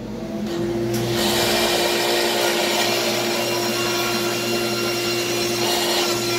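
Table saw whining as its motor comes up to speed. From about a second in the blade rips through a cedar board, adding a steady cutting rush over the motor's whine.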